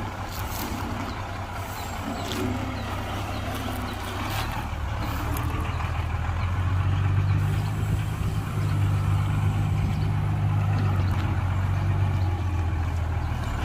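Heavy diesel engine of earthmoving machinery running with a deep steady hum, working harder and louder from about five seconds in and easing off near the end. A few light clicks and knocks in the first few seconds.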